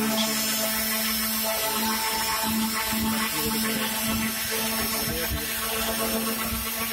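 Electric random orbital sander running on a sheet-metal table top: a steady motor hum over a rough sanding hiss.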